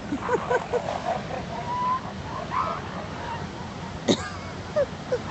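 Northern elephant seals calling across a crowded beach: many short overlapping calls that slide up and down in pitch, with one sharp falling call about four seconds in. Surf washes steadily underneath.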